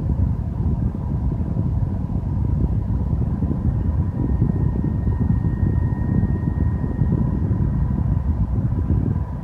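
PlayStation 4's fan running with a loud, steady low rush, over which a thin, high steady whine sounds. A second, higher whine joins it for about three seconds in the middle. This is the console's coil whine, a new console's electronic fault rather than a fan problem.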